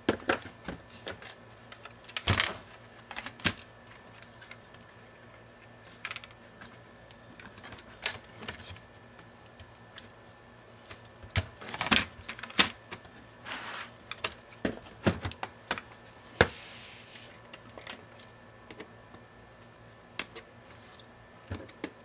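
Irregular sharp plastic clicks and taps, with a few short scrapes, as a Lenovo ThinkPad E490's keyboard and palmrest assembly is handled, turned over and worked at along the keyboard edge.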